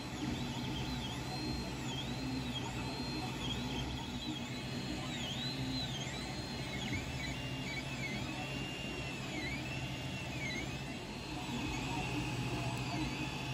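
Ender 3 Pro 3D printer printing, its stepper motors whining in tones that repeatedly rise and fall as the print head speeds up and slows down over a steady hum of cooling fans.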